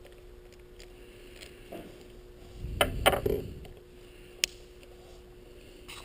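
Handling noise from a plastic ECU connector and a metal pick: a burst of rubbing and rustling with two sharp clicks about halfway through, then a single sharp click about a second later, over a faint steady hum.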